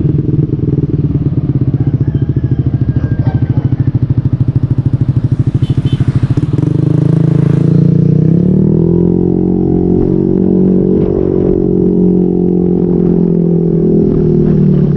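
Motorcycle engine through an SC Project aftermarket exhaust, pulsing at low revs, then rising in pitch as it accelerates about seven seconds in. It holds a steady higher note and eases off slightly near the end.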